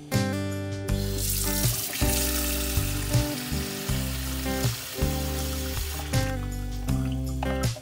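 Tap water pouring into a plastic colander holding a piece of fish in a stainless steel sink, rinsing it; the stream starts about a second in and stops near the end. Background guitar music plays under it.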